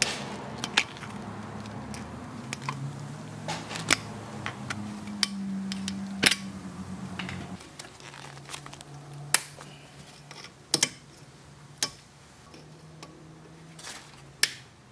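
Flat-blade screwdriver prying and scraping at a locking tab on a brake rotor's wheel stud, making sharp metallic clicks and taps at irregular intervals. The tab is being bent up to release a rotor that has never been changed from the hub. A low hum runs underneath and shifts pitch about halfway through.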